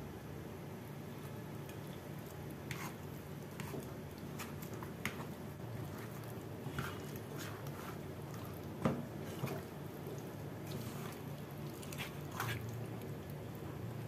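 A hand squishing raw chicken pieces through a yogurt and spice marinade in a metal bowl: scattered wet squelches and light clicks, the loudest about nine seconds in, over a low steady hum.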